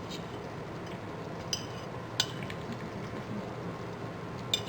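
Spoon clinking against a dish three times, short bright metallic ticks that ring briefly, over a steady low background hiss.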